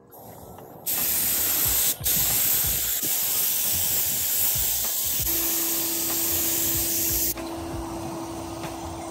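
Gravity-cup spray gun spraying gelcoat with a loud, steady hiss that starts about a second in, breaks briefly near two seconds and stops about seven seconds in. A steady hum carries on after the hiss stops.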